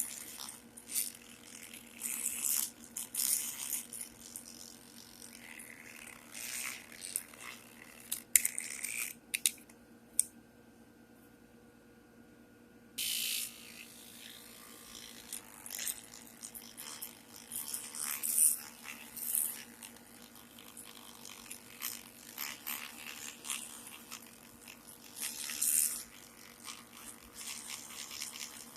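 Toothbrush scrubbing and scraping at metal parts of an antique sewing machine in irregular strokes, with a pause of a few seconds about ten seconds in.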